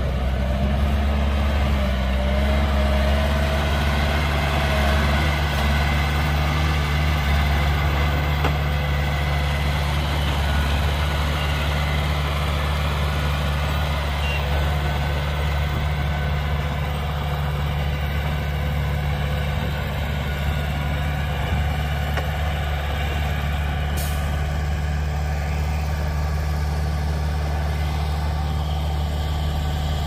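Heavy diesel engine of earth-moving machinery running steadily, a continuous low hum.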